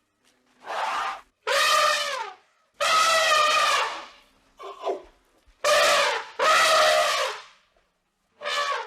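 An animal calling over and over: about six long, pitched cries, each roughly a second, some sliding down in pitch at the end.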